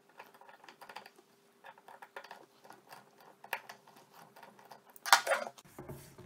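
Handling noise of hands working on a shotgun's action: scattered small clicks and rustles, with a louder scrape about five seconds in.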